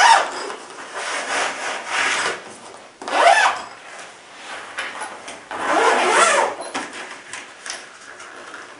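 Zipper on an Allen Endura soft rifle case being pulled along in several long strokes, the loudest near the start and about three seconds in, with the fabric of the case being handled.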